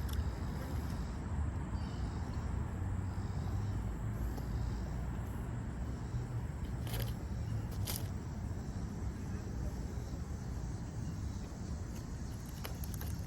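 Steady wind rumble on the microphone outdoors, with two short clicks about seven and eight seconds in and a few faint ticks near the end.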